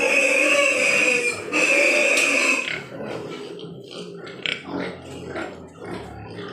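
Large White Yorkshire pigs squealing: two long, loud squeals one after the other over the first three seconds, then shorter, quieter grunts and oinks.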